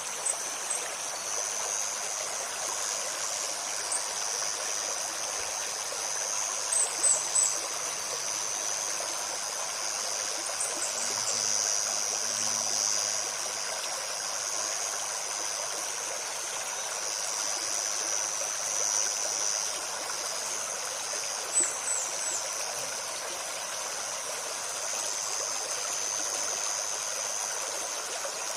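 A shallow woodland river babbling steadily over stones, with a continuous high insect buzz above it. A few short, high bird chirps come through, in small clusters about 7 seconds in and again near the end.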